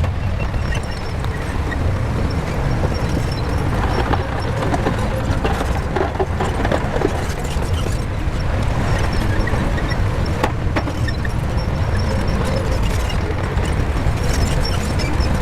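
Shantui bulldozer's diesel engine running steadily under load, a constant low rumble, with a couple of sharp metallic knocks about ten seconds in.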